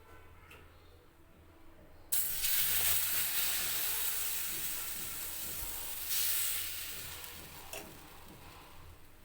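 Sizzling in a hot oiled pan, starting suddenly about two seconds in as battered bread for veg French toast goes in, with a second surge of sizzling a few seconds later, then slowly dying down.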